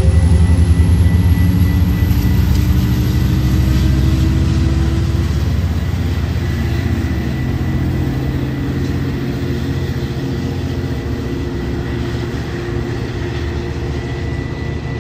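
EMD F59PH diesel locomotive engine running under load as the passenger train pulls away: a low, loud drone that rises slightly in pitch a few seconds in and fades steadily as the train recedes.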